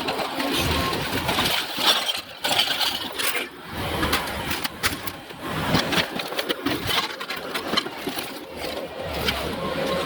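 Heavy equipment engine running, with frequent clattering knocks of demolition debris throughout.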